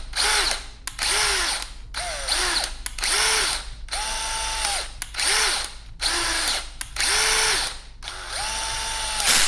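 Electric drill on its lowest setting driving a screw in and out of a threaded hole in about nine short bursts, the motor whining up and dropping away with each trigger pull. The screw is being used to clear old thread glue and brake cleaner out of the hole's threads.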